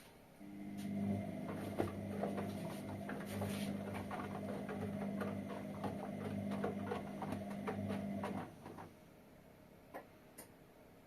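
Whirlpool washing machine running a steady, pitched mechanical hum with a patter of small clicks and rattles near the end of a Quick Wash cycle. It starts abruptly, stops about eight seconds later, and two faint clicks follow.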